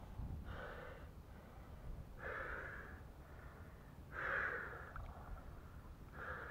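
A wooden boat being paddled across still water: a soft swish with each stroke, four strokes about two seconds apart, the third the loudest.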